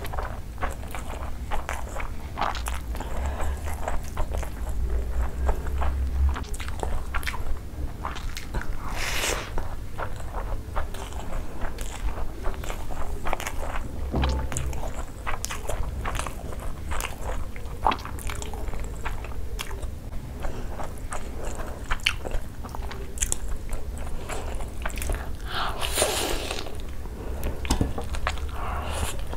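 Close-miked chewing of mutton and rice eaten by hand: a run of many short mouth clicks and smacks, with a few longer noisy smacks, over a low steady hum.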